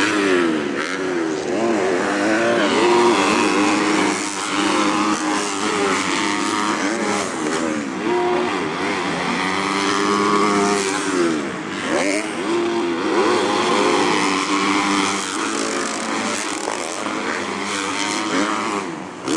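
Several motocross bikes racing on the track. Their engines rev up and drop off again and again, with more than one bike heard at once.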